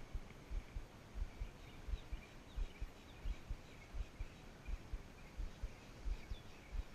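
Irregular low rumbling thumps of wind buffeting the microphone, with faint short bird chirps.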